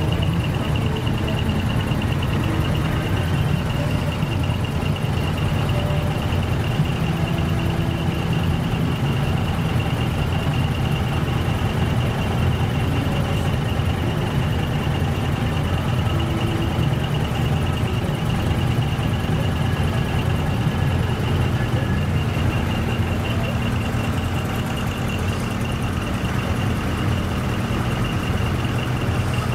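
Diesel engines of parked dekotora trucks idling, a steady low rumble, with a steady high-pitched tone over it.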